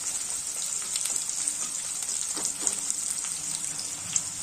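Sliced onions and green chillies sizzling steadily in hot oil in a kadai on high flame, with a metal spatula scraping and ticking against the pan now and then as they are stirred.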